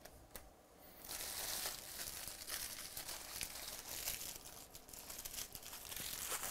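Plastic wrapping crinkling and being crumpled by hand, a dense crackle of small clicks that starts about a second in.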